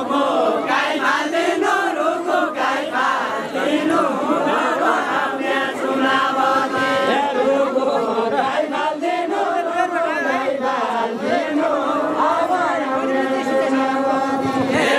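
A group singing a Deuda folk song together, many voices chanting the melody at once.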